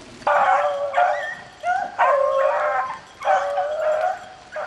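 Beagles baying on a rabbit's trail: three long, drawn-out bawls in a row, each dipping in pitch and then holding.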